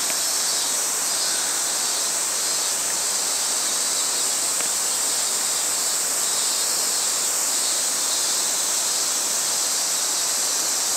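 Steady outdoor ambient hiss, even and unchanging, strongest in the high range.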